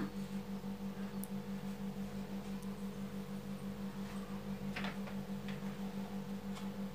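Faint rustling of hands mixing powdered biscuits with milk in a plastic bowl, clearest about five seconds in, over a steady low hum that pulses several times a second.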